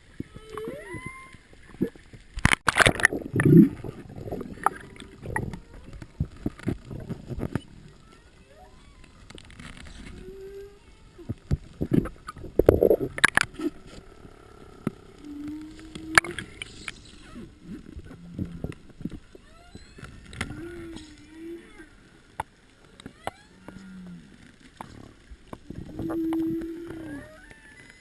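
Humpback whale song heard underwater: a series of short moans and whoops that rise and fall in pitch, some low and some higher. There are loud sudden bursts of water noise about three seconds and thirteen seconds in, with scattered knocks between.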